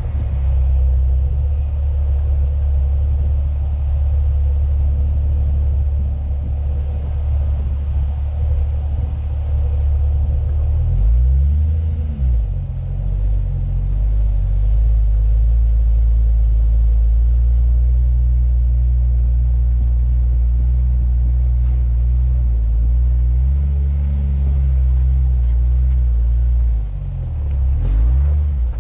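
Off-road 4x4's engine running at low revs, its pitch rising and falling briefly about eleven seconds in, again around twenty-four seconds, and near the end.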